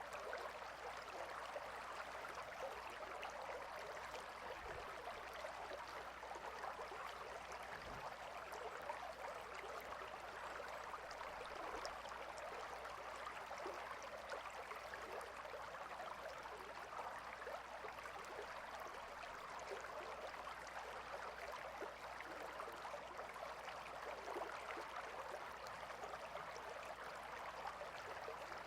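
Gentle river flowing: a steady, even rush of water with no changes.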